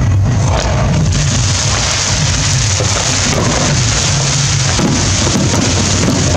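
Fireworks display going off in a dense barrage: fountain and aerial fireworks make a continuous crackle and hiss, with a low rumble underneath.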